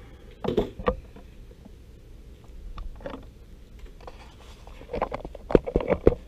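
Scissors cutting carbon fiber–Kevlar cloth remnants, and the loose cloth being rustled and handled. The sounds come as short irregular rustles and clicks, with a cluster of sharp knocks, the loudest, near the end.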